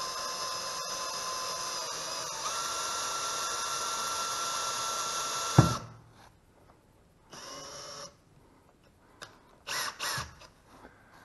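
Makita cordless drill boring a hole with a long thin bit into the car's side sill, running with a steady whine that steps up in pitch about two seconds in. Just past halfway it cuts off with a sharp knock and its pitch falls away; after that come a few short bursts of the drill.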